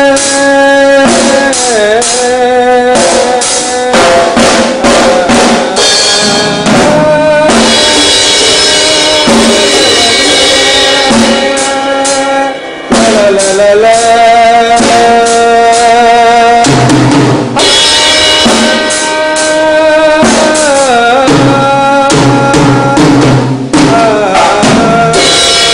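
Small child playing a Tama drum kit, hitting drums and cymbals in time with a song whose held melody line slides in pitch now and then.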